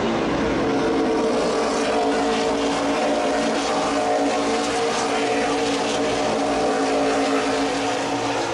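NASCAR stock cars' V8 engines running on the track, a steady drone of several tones that shift slowly in pitch.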